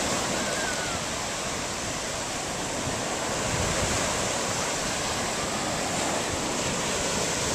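Ocean surf breaking on the beach, a steady wash of waves.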